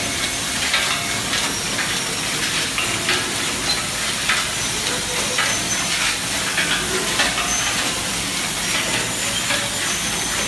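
Rotary egg-cracking and separating machine running: a steady hissing whir, with frequent irregular metallic clicks and clacks from its cracker heads and yolk cups.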